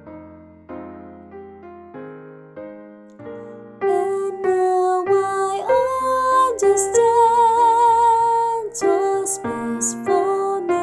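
Piano accompaniment playing a slow passage alone, then about four seconds in a soprano voice enters singing the melody with vibrato over the piano.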